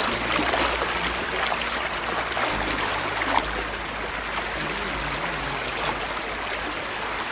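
Shallow river water rushing steadily over rocks, with splashing from feet wading through it.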